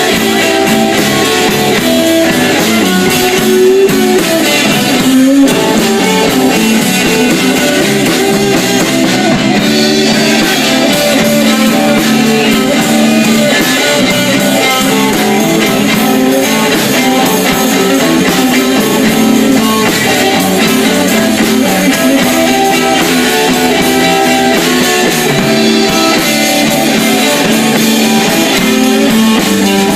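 A live blues instrumental played by electric guitar, bass and drum kit, with the guitar carrying the lead. The band plays continuously at a steady loud level.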